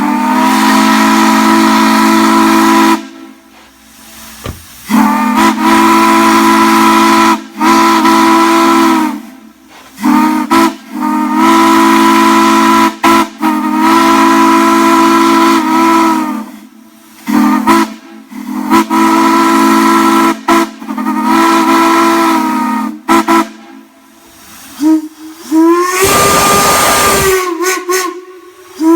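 Steam whistle blown in a series of long blasts of several seconds and short toots, several notes sounding together over a rush of hiss. Near the end a different, higher-pitched whistle sounds briefly.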